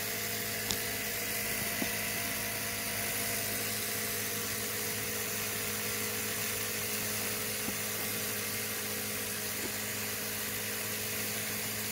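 A pulse motor's 3D-printed aluminum rotor spinning fast on its bearings, driven by a dual JL94 pulse circuit at 7 volts: a steady whir with an even hum under it and a few faint ticks.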